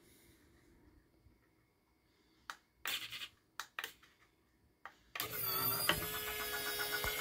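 A few clicks and knocks, then about five seconds in an electric linear actuator's motor starts and runs with a steady whine, driving the connector carriage along its rail.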